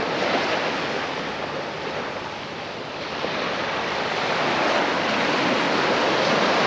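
Small sea waves breaking and washing up a sandy beach, a steady rush of surf that dips about halfway through and swells again toward the end.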